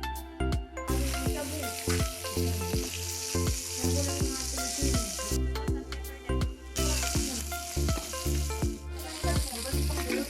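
Pork belly sizzling on a hot grill pan, a steady hiss that drops out twice, briefly, for a second or so. Background music with a steady bass line plays under it.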